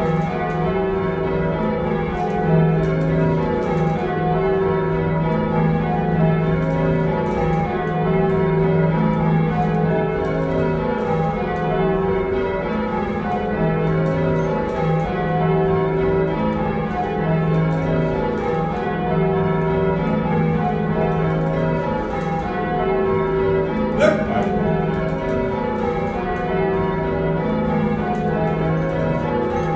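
A heavy ring of six church bells, cast by John Taylor & Co in 1925 with a tenor of 19-3-14 in E-flat, rung full-circle by rope in an even, continuous succession of strokes, heard from the ringing chamber below. There is a single sharp click near the end.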